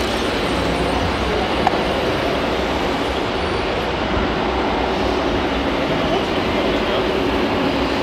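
Steady engine-like rumble from a radio-controlled Volvo scale truck driving over dirt, with voices murmuring in the background and a single brief click about a second and a half in.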